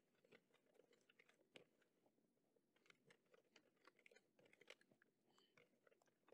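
Near silence with faint, irregular plastic clicks from a Sentro 48-needle circular knitting machine, its crank turned slowly and its needles handled as yarn is woven around them.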